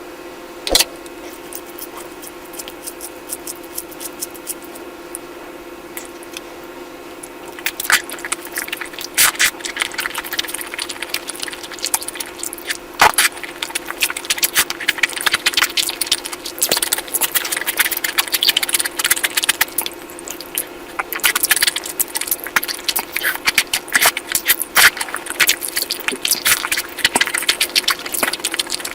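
Close-up eating sounds of curry: wet squishing, smacking and quick clicks that come thick and fast from about eight seconds in, over a steady low hum.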